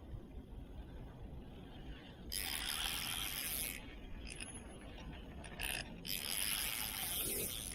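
Fishing reel working under strain from a large hooked fish, its mechanism buzzing in long bursts with quieter pauses between.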